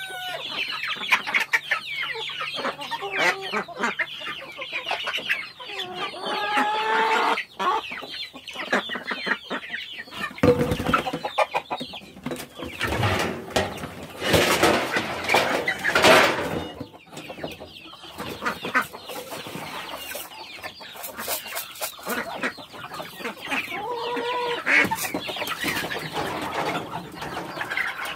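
A flock of chickens clucking, many birds calling over one another.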